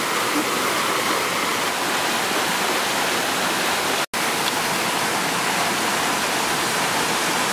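Shallow rocky stream running over small cascades, a steady rush of water that cuts out for an instant about four seconds in.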